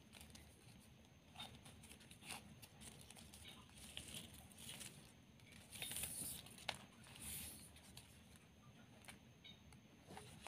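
Faint rustling and crinkling of shiny ribbon strips handled and woven by hand, with scattered soft clicks and a few brief brighter rustles about six and seven seconds in.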